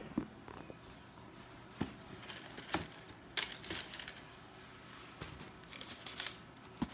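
Sneaker packaging being handled: wrapping crinkling and rustling in short irregular bursts, with several sharp clicks and taps in between.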